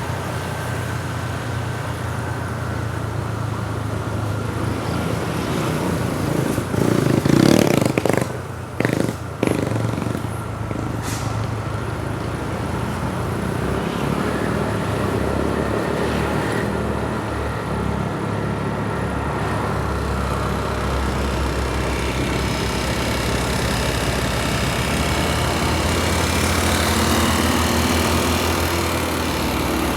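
Road traffic with motor vehicles and motorcycles passing. A louder vehicle goes by about seven to ten seconds in, and a steady engine hum follows in the second half.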